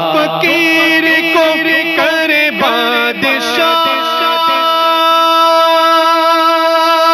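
Male voice singing an Urdu devotional Muharram kalam: a run of ornamented melodic turns without clear words, then a long held note from about halfway through.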